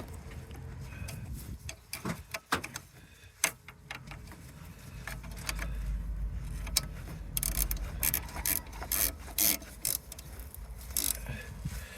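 Metal clicks and clatter of hand tools on a car's front brake assembly, with a quick run of ratchet-like clicks in the second half.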